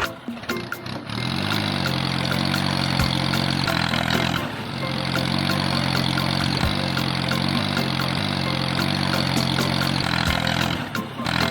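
Engine starting up and running steadily, its pitch rising about a second in. It briefly dips before the middle, runs on, and cuts out near the end.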